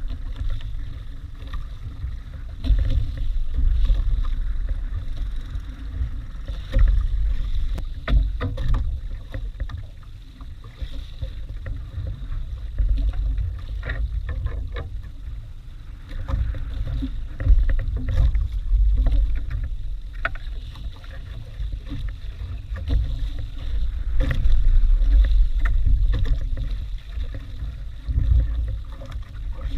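Wind buffeting the microphone in a low, gusting rumble, with sea water washing around a small outrigger boat on choppy water. There are a few light knocks now and then.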